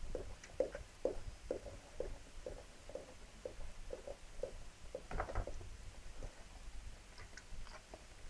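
Labrador bitch licking her newborn puppies: a steady run of short wet licks, about two a second, that fades out about halfway, then one louder rustle of fur and blanket about five seconds in.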